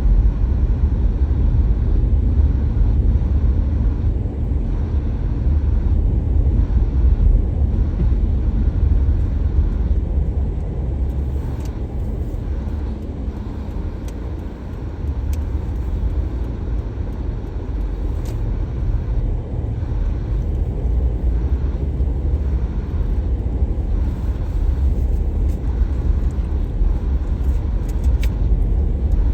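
Car on the move: a steady low rumble of engine and road noise that eases off for a few seconds midway, then builds again.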